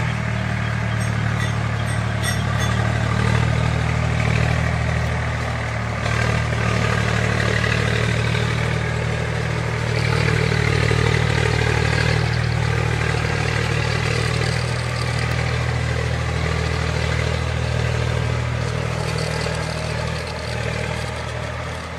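Engine running steadily with a low, even drone under a mechanical rattle, heard as the miniature tractor tows the other by its chain.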